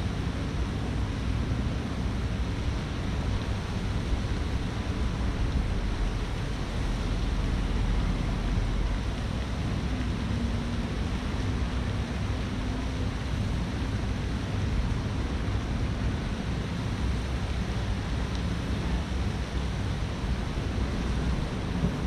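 Steady rushing outdoor noise, heaviest in a low rumble, with no distinct events.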